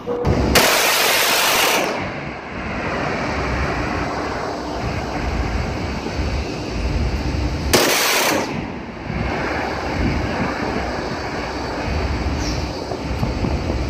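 A shipboard automatic gun fires two bursts, each lasting about a second and a half, about seven seconds apart. Between the bursts there is a steady rumble of wind and sea.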